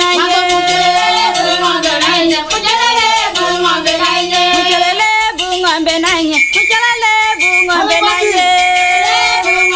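Dance song: a voice singing a melody over fast, dense percussion, with a steady, unbroken beat.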